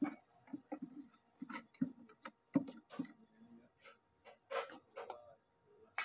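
Small wooden 125-watt electric grass chopper cutting grass stalks as they are fed in by hand: a fairly quiet, uneven run of short ticks and snaps.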